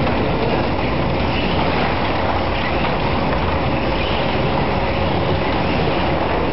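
Slot cars racing around a club track: the steady, continuous whir of their small electric motors running on the circuit.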